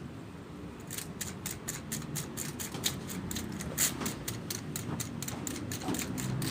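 IBM Selectric III electric typewriter being test-typed after servicing: the typeball strikes in a quick, fairly even run of clacks, about five a second, starting about a second in, over the low hum of its running motor.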